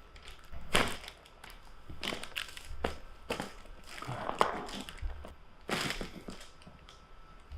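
About half a dozen short, crunchy rustling and handling noises during a chiropractic treatment session, the clearest about a second in and near six seconds, with quieter shuffling between.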